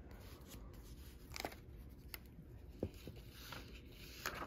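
Hardcover book being opened and its pages handled: faint paper rustling with a few soft clicks.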